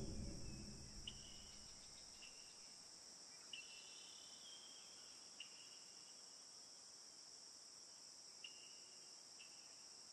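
Faint, steady high-pitched insect chorus, with about six short faint chirps scattered through it. The ringing tail of a louder struck sound dies away over the first second or two.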